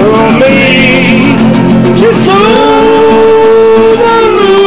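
Live acoustic music: a guitar playing while men sing along, holding long notes.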